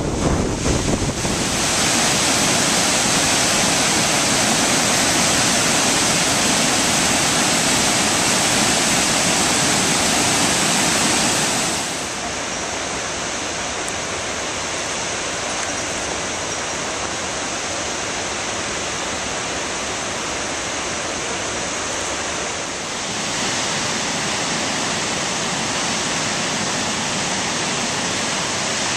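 Steady rushing of the Genesee River's waterfalls, with a little wind buffeting the microphone in the first second. About 12 seconds in the rush drops slightly quieter and less bright as the view changes to the Upper Falls seen from farther off, then swells a little again about 23 seconds in.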